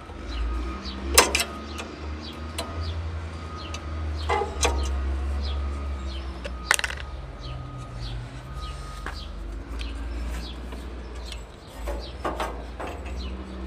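A few sharp metal clanks and knocks as the motor is worked off the hinged motor mount of a Craftsman contractor table saw, the loudest about a second in, with smaller handling clicks between. Small birds chirp throughout.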